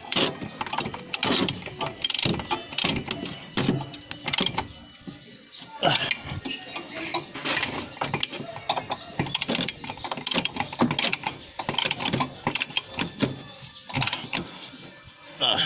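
A hand wrench clicking and clinking against metal as it turns the nuts on a car's brake master cylinder: a run of quick, irregular metallic clicks and knocks.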